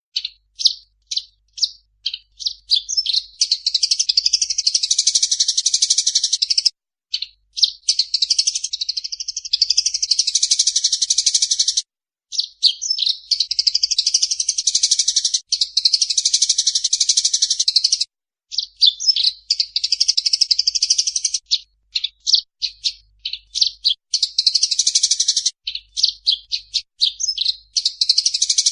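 Eurasian tree sparrows giving agitated fighting calls: high-pitched bouts that open with a few separate chirps and build into a dense, harsh chatter lasting several seconds. The bouts break off and start again about five times.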